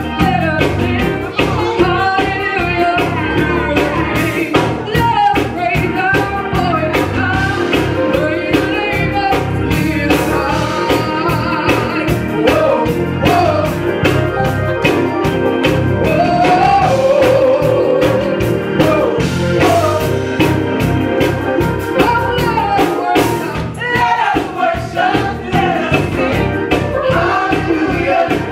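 A gospel praise and worship team singing live into microphones, several voices together, over instrumental accompaniment with a steady bass line and percussive beats.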